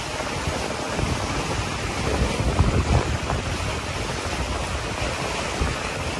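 Water rushing along the hull of a Melges 24 sailboat sailing fast downwind, mixed with wind buffeting the microphone. It is louder for a moment about two and a half seconds in.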